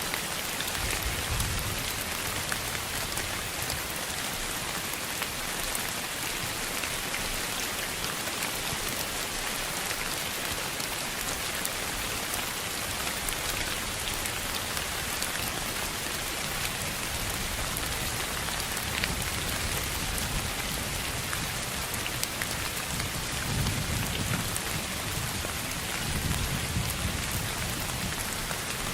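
Steady rain falling on a surface, an even hiss with many individual drops ticking through it. Low rumbles swell briefly about a second in and again near the end.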